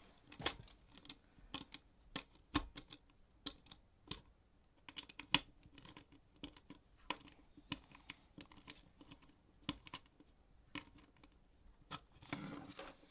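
Small screws being driven by hand into a plastic robot-car chassis: irregular light clicks and taps of the tool and parts, a few scattered ones each second.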